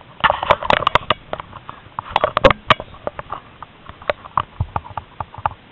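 Irregular clicks, knocks and rustling, bunched in two louder flurries in the first three seconds and then scattered: handling noise from a handheld camera moving against rope netting.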